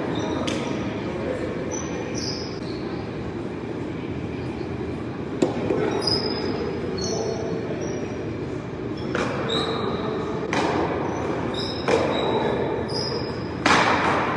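Paddleball rally: about five sharp pops of a paddle striking the ball and the ball slapping the wall, spaced a second or more apart, the loudest near the end. They sit over a steady rushing background noise, with a few short high squeaks.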